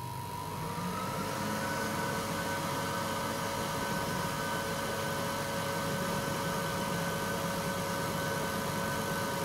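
10 W WeCreat Vista diode laser engraver starting a job: a steady machine hum and hiss with a constant whine, joined about a second in by higher whines that rise in pitch and then hold steady as the machine comes up to speed.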